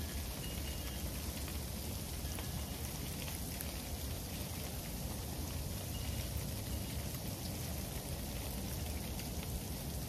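Freezing rain falling steadily, a dense patter of tiny ticks on the patio and surrounding surfaces, over a steady low rumble.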